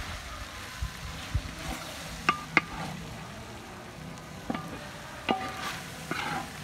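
Wooden spatula stirring and scraping onions in a large metal pan as they fry, with a faint sizzle underneath. Several sharp knocks of the spatula against the pan, some leaving a brief metallic ring.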